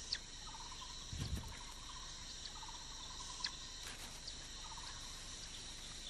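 Faint forest ambience: insects trilling steadily and high, with short chirping trills repeating every second or so, and a soft low thud about a second in.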